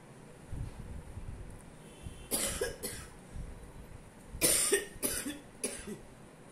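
A person coughing: two coughs, then a run of three more about two seconds later.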